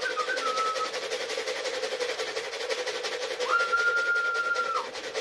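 A person whistling to call racing pigeons down to the loft: a short warbling whistle that ends about a second in, then a long level whistle held about a second and a half past the middle. Under it a steady rattly hiss and hum.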